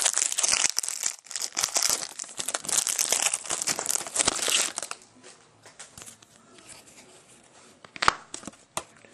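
Shiny foil wrapper of a baseball-card pack being torn open and crumpled by hand: a dense crinkling crackle for about five seconds, then quieter with a few sharp ticks near the end.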